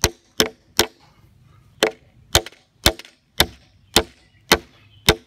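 Hammer blows on the end of a short black steel pipe, driving it into a tight-fitting hole drilled in a wooden post: about ten sharp strikes at roughly two a second, with a short pause about a second in.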